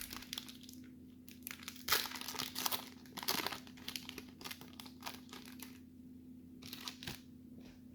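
Paper-and-foil wrapper of a 1992 Leaf baseball card pack being torn open and crinkled by hand, in irregular crackling bursts, busiest in the first half and again briefly near the end, over a faint steady hum.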